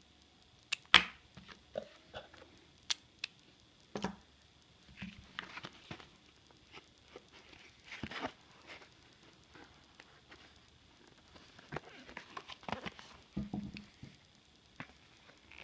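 Handling noise from small plastic items and packaging. There are sharp clicks, the loudest a single snap about a second in, as magnetic guitar picks click together. Then come bursts of rustling and crinkling as a cardboard-backed plastic blister pack is picked up and turned over.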